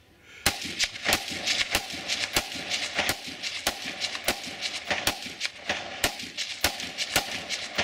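Rifle firing a long rapid string of shots, roughly two a second at an uneven pace, starting about half a second in.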